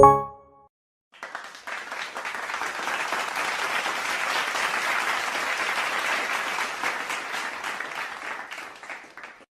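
Crowd applause sound effect: many hands clapping steadily for about eight seconds, tapering off near the end. A brief pitched note sounds at the very start, just before it.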